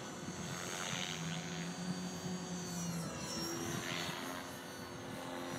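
Align T-Rex 500 RC helicopter flying overhead: a steady rotor-and-motor hum whose pitch shifts about three seconds in as it manoeuvres, with a faint high whine and a couple of soft blade whooshes.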